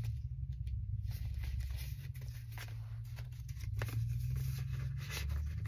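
Paper index cards being handled and filed into a box: scattered light rustles and ticks over a steady low hum.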